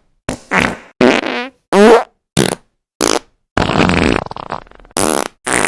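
A quick run of fart sound effects: about nine short blasts separated by silences, several with a wobbling, falling pitch, and one longer one starting about three and a half seconds in that trails off.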